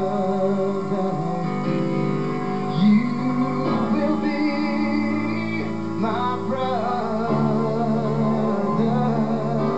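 Live band music: guitar with long sung notes held over it.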